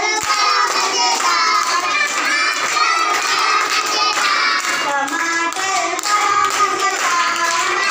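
Young kindergarten children singing a rhyme together in chorus.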